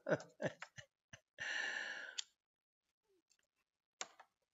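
A man's long breathy exhale, blowing out a puff after drawing on something he is smoking, preceded by a few short clicks and mouth noises. A single short click follows near the end.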